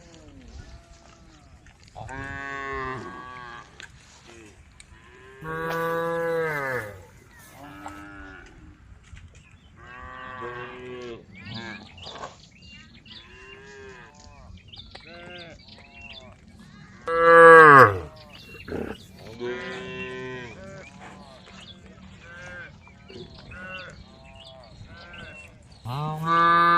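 A herd of cattle mooing: many separate long calls from several cows at different pitches, some faint and some loud, with the loudest call about two-thirds of the way through and another loud one at the end.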